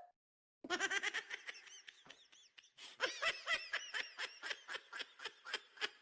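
Laughter sound effect: rapid, high-pitched, pulsing laughter that starts about half a second in, eases briefly around two seconds and picks up again.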